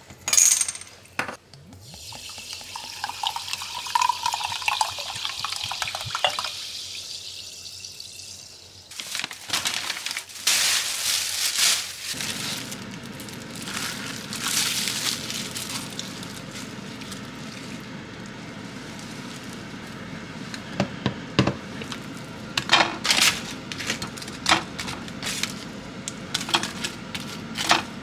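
A sparkling-water bottle cap twisted open with a sharp crack. The carbonated water is then poured into a ceramic mug with a fizzing hiss for several seconds. Then a plastic bag of tteokbokki is crinkled and squeezed into a plastic bowl, and light clicks of chopsticks on a plate come near the end.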